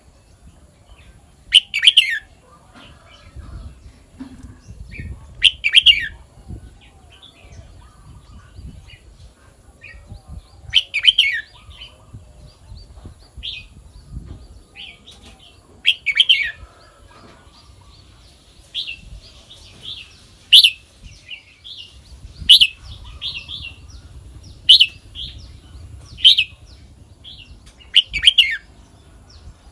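Red-whiskered bulbul singing: short, loud, warbled phrases every few seconds, coming more often in the second half, with softer chirps in between.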